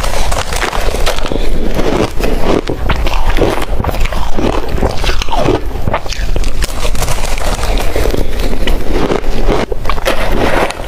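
Ice being bitten and chewed, a loud, dense run of crunches and crackles.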